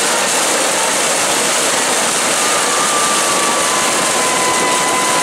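Steady crowd noise from the stands at a football game, with one long held tone joining about halfway in.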